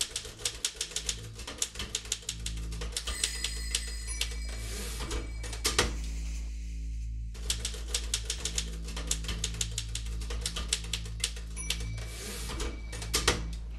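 Rapid typewriter keystroke sound effects clattering over a low, steady music drone, with a short pause in the typing about halfway through. A ringing tone sounds twice, once about three seconds in and again near the end.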